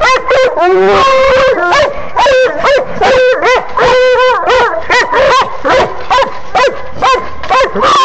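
Several coonhounds barking and bawling at a caged raccoon in frantic, overlapping calls, several a second, with no let-up.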